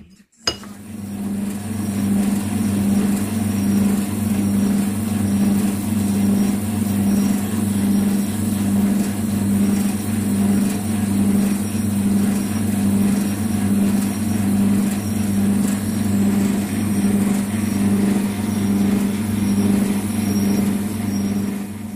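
Metal lathe running and cutting a cast iron spacer. A steady machine hum pulses evenly about one and a half times a second, under a hiss of the cut. It starts suddenly about half a second in.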